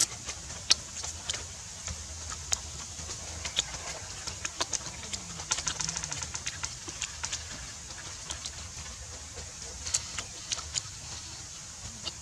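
A person chewing grilled mouse meat close to the microphone: irregular small crunches and clicks, a few a second, over a low steady rumble.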